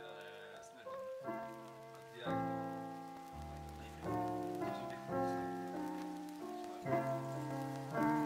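Background music of slow, sustained chords, a new chord struck every second or two and left to fade.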